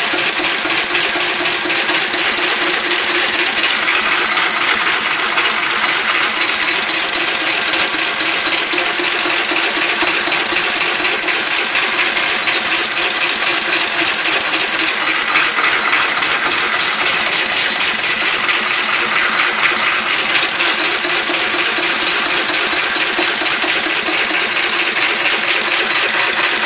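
Listeroid 6/1 single-cylinder diesel engine running steadily, with a loud, rapid, even mechanical clatter.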